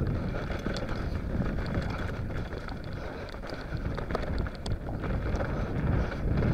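Wind buffeting an action camera's microphone as an enduro mountain bike rolls fast down a dirt trail, with a steady rumble from the tyres and many small rattles and clicks from the bike over the bumps.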